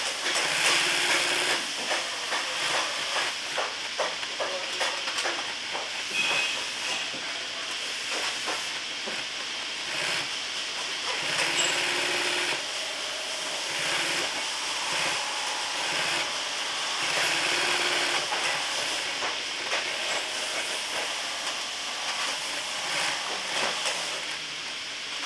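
Industrial post-bed sewing machine stitching a leather boot upper in short runs, starting and stopping as the piece is turned, over a steady hiss.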